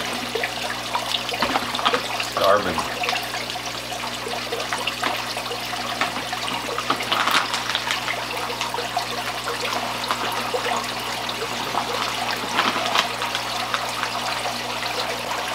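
Steady splashing and trickling of water pouring into a koi tub from a filter return, over a low steady hum. Several sharper splashes and slurps come from koi taking food pellets at the surface.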